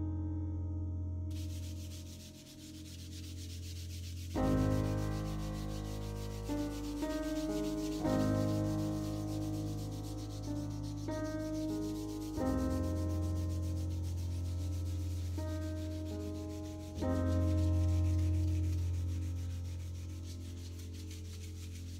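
Sandpaper rubbed by hand back and forth over chalk-painted pallet boards, distressing the paint: a fast, rasping scrub that starts about a second in. Under it plays ambient keyboard music with sustained chords that change every few seconds.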